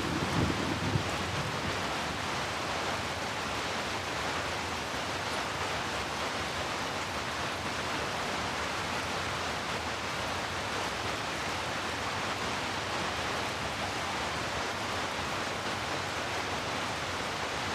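Steady heavy rain, an even hiss with no separate drops standing out. The tail of a low thunder rumble dies away in the first second.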